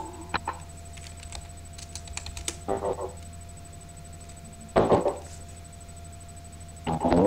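Computer keyboard typing: a quick run of key clicks about two seconds in, with a few short bursts of voice in between, over a steady electrical hum.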